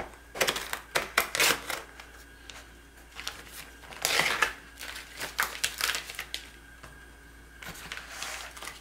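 Plastic film crinkling and tearing as it is peeled off a plastic meat tray, in three spells of crackling with short pauses between them.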